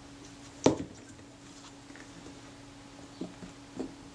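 Handling noises as a small brass lens focusing part is picked up from the workbench: one sharp knock a little under a second in, then a few light taps.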